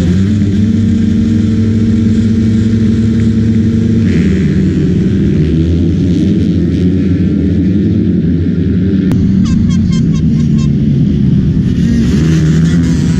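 Several motocross bike engines running together, loud. Their note holds steady for about the first four seconds, then rises and falls unevenly.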